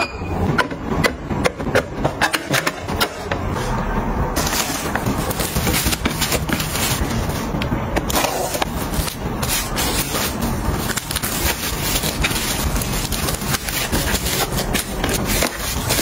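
Glass beer bottles knocking and clinking as they are set into a fridge door shelf. About four seconds in, this gives way to a continuous crinkling and rustling of plastic cling film as meat is wrapped, with small knocks from handling.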